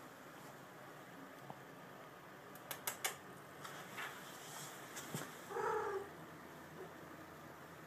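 A domestic cat with rabies gives one short cry, about half a second long, near the end, a few seconds after some sharp clicks or taps.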